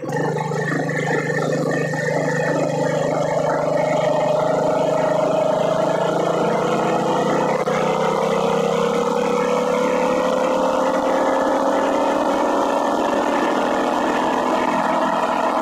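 Small gas engine of a motorized bike running steadily under way, its pitch rising slowly as the bike gathers speed.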